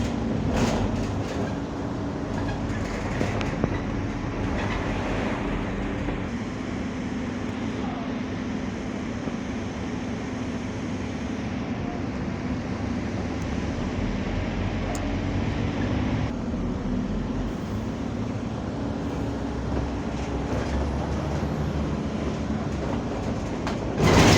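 Steady running noise from inside a moving vehicle, with a constant low hum whose pitch shifts slightly a few times.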